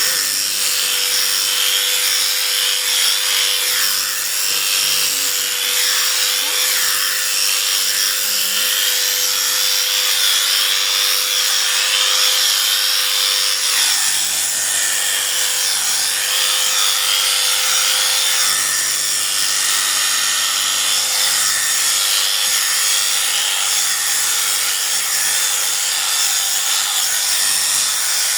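Electric sheep-shearing clippers running steadily as the cutters work through the fleece, with a constant buzz and a hum that fades about halfway through.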